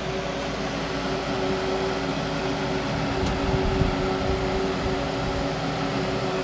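Steady electric hum of pump-station machinery running, with a constant whine over a broad noise, and a brief low bump about three and a half seconds in.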